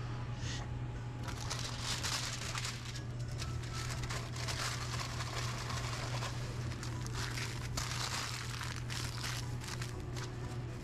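Deli paper and foil crinkling and rustling by hand as a foil-wrapped pita is rolled up in wrapping paper and its end twisted closed, in irregular scratchy bursts over a steady low hum.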